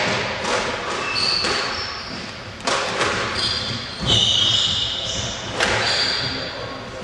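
Squash rally: the ball is struck by rackets and hits the court walls in sharp cracks every second or so, among high squeaks of shoes on the wooden floor.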